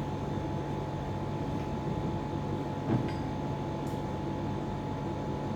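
Steady machine hum with a single sharp knock about three seconds in.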